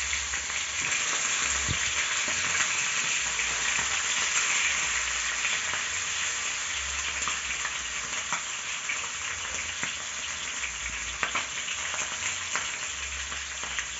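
Chicken pieces sizzling in hot oil in a frying pan, a steady crackling hiss with scattered pops, just after being turned over to brown the second side.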